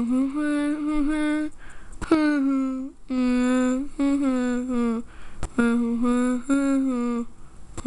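A child's voice humming a tune in several short phrases of held notes.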